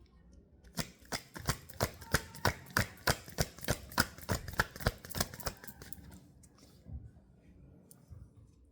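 Tarot cards being shuffled and handled: a quick, even run of sharp clicks, about four a second, for several seconds, then a few scattered clicks.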